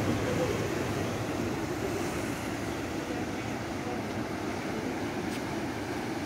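Surf breaking on a rocky shore and sandy beach: a steady, even rush of noise.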